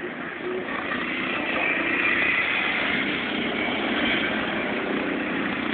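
Racing lawn mower engines running hard on the track, with a steady whine that grows louder about a second or two in.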